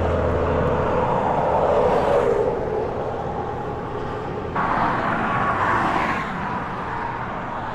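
Vehicle engine noise: a steady rumble with a faint engine hum, which shifts abruptly about four and a half seconds in.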